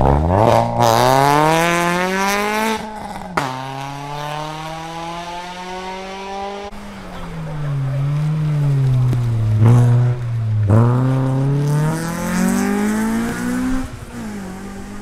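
Rally car engine revving hard under acceleration, its pitch climbing steeply and then dropping sharply at a gear change about three seconds in. The pitch then falls away and climbs again twice more as the car brakes and accelerates.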